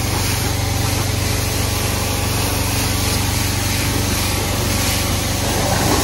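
Water spray hissing steadily as it rinses down a car's engine bay, over a steady low engine hum.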